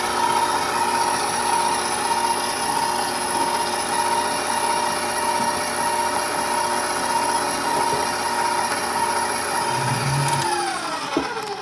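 Stand mixer motor running at high speed with its wire whisk beating icing in a stainless steel bowl, a steady mechanical whir. Near the end the mixer is switched off and its pitch falls as the motor spins down.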